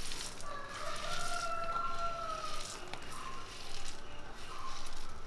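A rooster crowing once: one long call of about two seconds, starting about half a second in.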